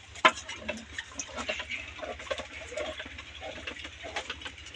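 Wooden madhani churner spun back and forth between the palms in an aluminium pot of besan batter: rapid, irregular clicking and patter of the wood working through the batter and against the pot, with one sharper knock just after the start.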